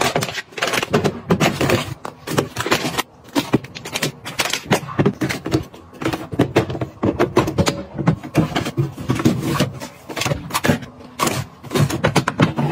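Handling sounds of packaged food and plastic containers being set down, opened and arranged: a quick, uneven run of clicks, knocks and scrapes.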